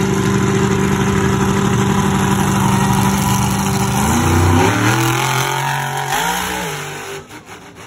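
A vehicle engine running steadily. About four seconds in, its pitch shifts and climbs in steps as it revs up, then the sound fades near the end.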